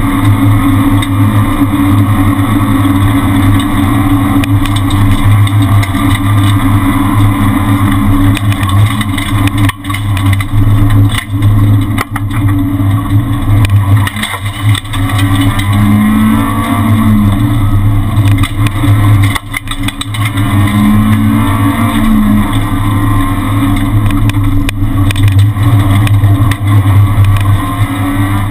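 Renault Twingo R1 rally car's engine running hard at high revs, heard from inside the cabin, with a few brief dips in loudness in the middle.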